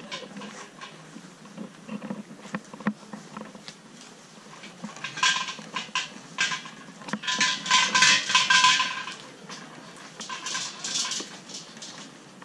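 Metallic jingling and rattling in three bursts, about five, seven and ten seconds in, with a clear ringing note under each; the middle burst is the loudest and longest.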